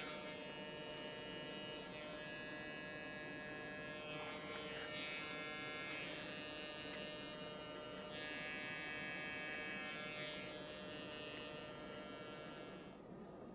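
Cordless hair clippers running with a steady buzz as they cut the short hair at the nape, stopping near the end.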